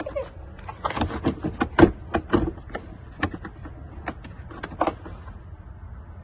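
Irregular clicks, knocks and rustling from a hard tool case and its contents being handled and opened during unpacking, with one sharper knock about two seconds in.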